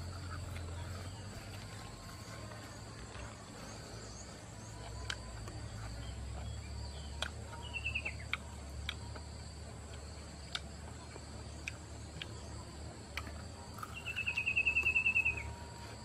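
Forest ambience: a steady high-pitched insect drone over a low rumble, with scattered faint clicks. There is a short chirp about halfway through and a rapid trilled call lasting about a second and a half near the end, which is the loudest sound.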